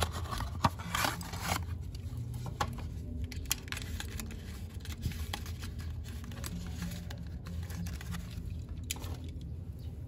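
A cardboard toy box and its clear plastic tray being opened and handled: scattered small clicks, taps and crinkles, busiest in the first second or two, as a diecast toy truck is slid out of its packaging.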